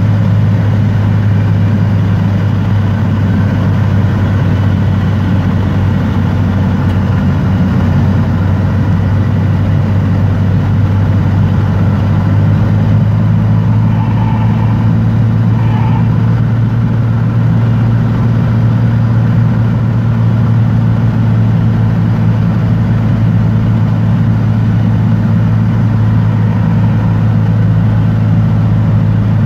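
Single-engine light aircraft's piston engine and propeller running steadily, heard from inside the cabin, with a low, even drone on approach to land.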